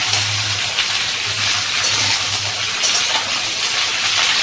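Malabar spinach (pui shak), pumpkin and potato sizzling hard in hot oil in a pan as they are stirred, with a steady low hum underneath.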